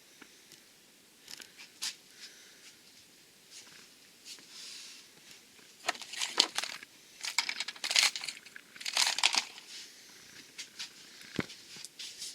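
Crinkling, rustling and clicking handling sounds in short scattered bursts, sparse at first and busier in the second half.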